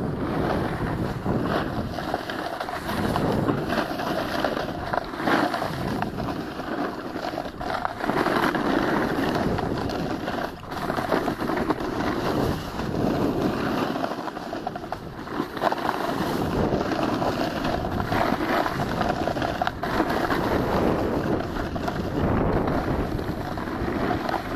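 Wind rushing over the camera microphone during a snowboard descent, together with the board sliding and scraping over the snow, rising and falling as the rider turns.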